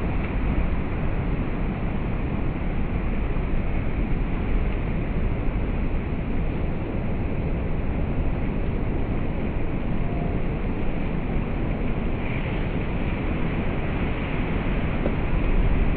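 Heavy ocean surf: a steady rush of big swells breaking on a rock breakwater, with wind rumbling on the microphone.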